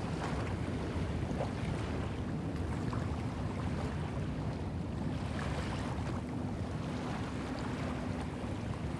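Small waves lapping on a sandy lagoon shore, swelling gently every couple of seconds, over a steady low rumble of wind on the microphone.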